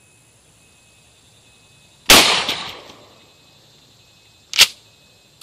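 A Mossberg 500 12-gauge pump shotgun fires a single shot about two seconds in, and the blast dies away over roughly a second. Near the end comes a short, sharp clack as the pump action is cycled.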